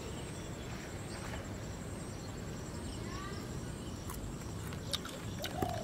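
Quiet outdoor ambience: a steady low rumble of background noise, with a faint bird call about three seconds in.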